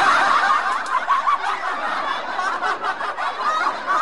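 A crowd of people laughing, a canned laugh-track sound effect: many overlapping laughs that keep going steadily.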